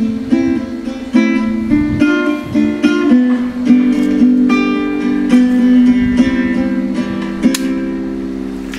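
Instrumental music led by a plucked, guitar-like melody over held notes, with no singing, fading toward the end.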